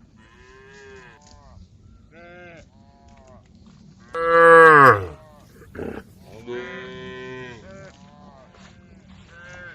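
Cattle mooing: a series of calls from several cows, with one loud moo about four seconds in that slides down in pitch.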